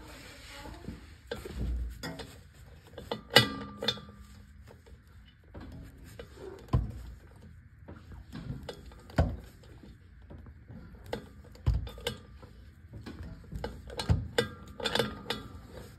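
Scattered metal clicks and clanks of a socket wrench and bolts being worked on a driveshaft flange, with the sharpest clank about three seconds in and a cluster of clicks near the end.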